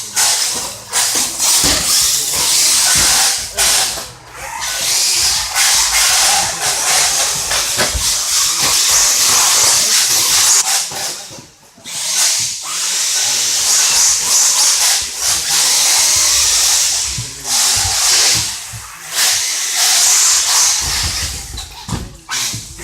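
RC cars running on a track: a loud, steady hiss that breaks off briefly every few seconds, with a few low thumps.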